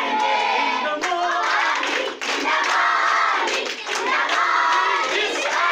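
A class of young schoolgirls singing together in unison in short phrases, clapping their hands along.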